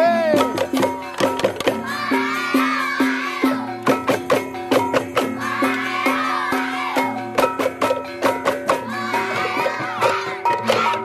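Balinese gamelan music: steady ringing pitched notes under a fast, continuous clatter of struck percussion, with a wavering higher melody coming in and out.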